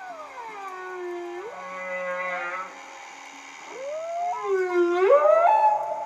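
Recorded whale song: long, gliding calls with many overtones. The first falls steeply in pitch over the first second and a half. A second swoops up and down about four seconds in.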